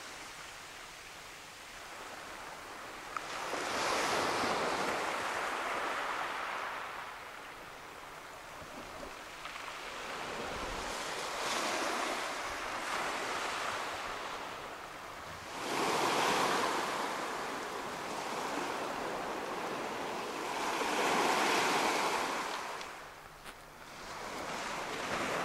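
Small waves breaking and washing up a pebble beach, the surf hiss swelling and fading every five seconds or so.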